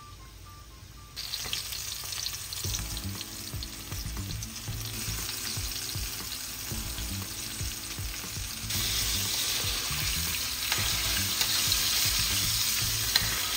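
Flour-coated chicken pieces deep-frying in hot oil at 375 degrees in a wok, a steady sizzle and crackle of bubbling oil. It grows louder in steps, first about a second in as more pieces go into the oil, and again past the middle.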